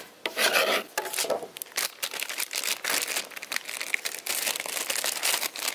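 Aluminium foil crinkling in a run of short crackles, with a knife scraping diced onion off a plastic cutting board into the foil pouch.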